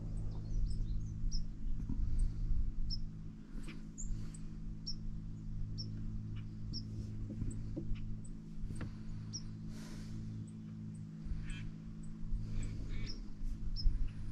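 A small bird chirping over and over in short, high notes, about one every half second to second, over a steady low hum.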